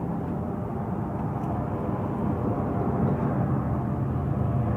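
Steady engine drone, slowly growing louder.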